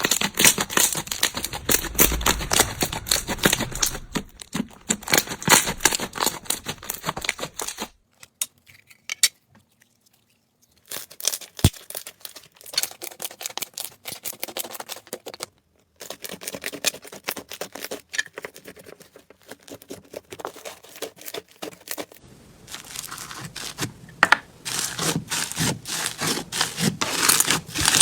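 Slime being squeezed and pressed by hand, giving dense crackling and popping clicks, in a run of short clips that cut off suddenly from one to the next, with a brief near-silent gap about eight seconds in.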